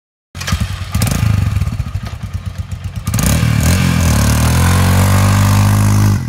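Royal Enfield Himalayan's 411 cc single-cylinder engine starts with short, uneven blips of the throttle. From about three seconds in it is revved high and held there while the rear knobby tyre spins on the loose dirt. The sound cuts off abruptly just before the end.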